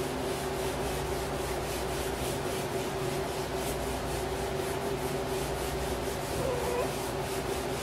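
An alcohol swab rubbed back and forth in quick, even strokes over a motorcycle's plastic side panel, cleaning the surface before a vinyl graphic goes on. A steady hum runs underneath.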